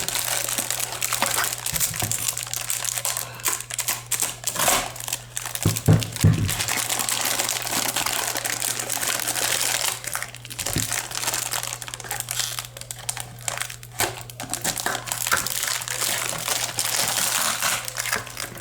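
Plastic packaging and tape crinkling and crumpling as it is pulled and torn off by hand, with a few louder handling knocks about six seconds in, over a steady low hum.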